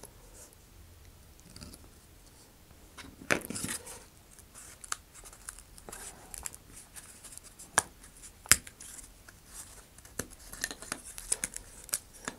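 Laser-cut plywood discs being pressed out of their sheet by hand, the small holding tabs snapping with sharp clicks and dry crackles, scattered with the two loudest snaps about eight seconds in.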